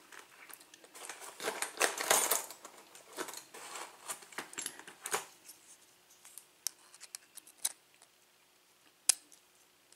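Small metal tools scraping and clicking against a euro lock cylinder while prying at its retaining clip: a dense run of scratching for about five seconds, then a few separate sharp clicks.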